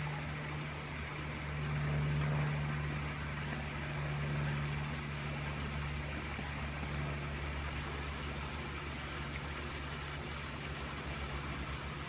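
A machine running: a steady low hum, a little louder about two seconds in and again near four and a half seconds.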